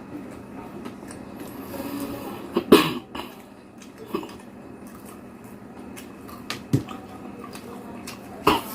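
A person coughing sharply once about three seconds in, with a few fainter sharp sounds later.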